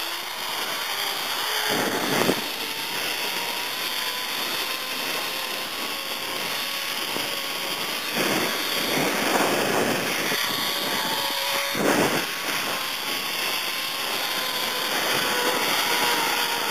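Zip-wire trolley running along a steel cable: a steady whirring whine from the pulley wheels over a rush of wind on the microphone. Two knocks sound, about two seconds in and again about twelve seconds in.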